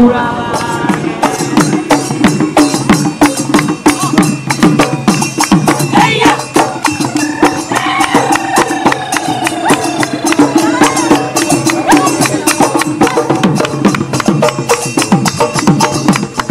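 Assamese folk dance music with fast, dense percussion over a steady pitched line.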